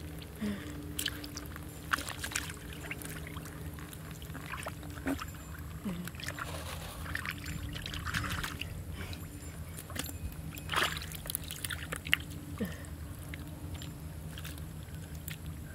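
Hands groping and sloshing through shallow, muddy pond water, with scattered small splashes. A steady low motor hum runs underneath.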